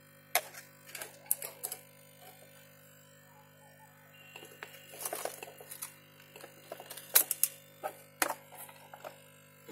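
Irregular sharp clicks and taps of multimeter probes against the motherboard's VRM MOSFETs, the loudest about seven seconds in, over a steady electrical hum.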